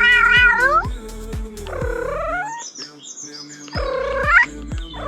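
Background music with a steady beat, overlaid with drawn-out cat meows that slide in pitch, three of them in turn. The bass beat drops out for about a second partway through.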